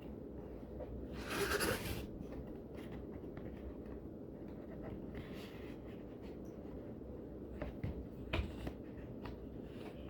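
Cardboard box and plastic packaging tray being handled: a scraping rustle about a second in, a softer rustle later, and a few sharp knocks near the end, over a faint steady low hum.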